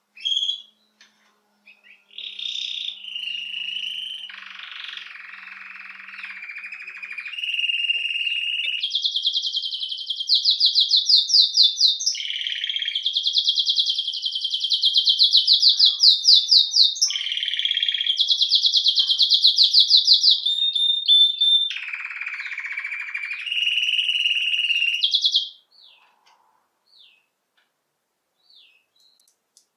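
Domestic canary singing a long, continuous song of fast trills and rolls that shifts in pitch from phrase to phrase. It stops about four seconds before the end, leaving a few faint chirps.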